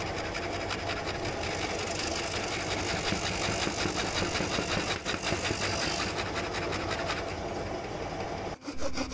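Electric scroll saw running, its narrow blade chattering steadily up and down as it cuts a thick wooden calligraphy cut-out. The machine sound stops abruptly near the end.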